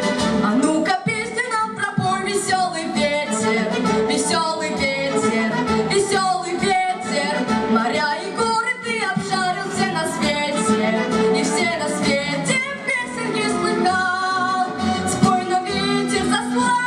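A girl singing solo over instrumental accompaniment, her voice carrying the melody with vibrato.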